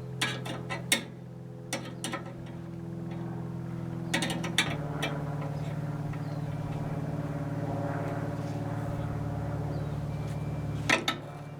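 Metal parts of a bandsaw circle-cutting jig clinking and tapping in a few short clusters while being fitted to the extension table. A steady low hum runs underneath and shifts to a different pitch about halfway through.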